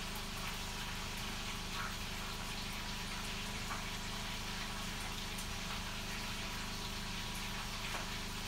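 Stationary spin bike's flywheel whirring steadily under continuous pedalling, with a few faint ticks.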